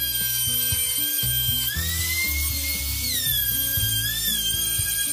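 Compact trim router running at high speed, cutting a circle in plywood on a circle-cutting jig; its whine dips and rises in pitch as the cutting load changes. Background music plays underneath.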